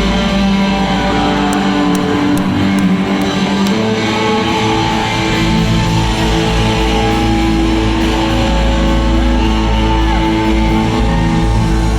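Live rock band playing loud electric guitars, with long held notes over a steady bass and drum backing.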